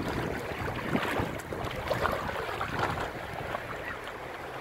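A dog splashing through shallow sea water, with the lap of small waves and wind on the microphone. The splashing is busiest in the first three seconds and eases off after that.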